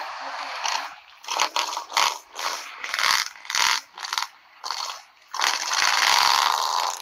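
Crunching of icy, crusted snow, in a run of short bursts about half a second apart, then a longer continuous crunch near the end.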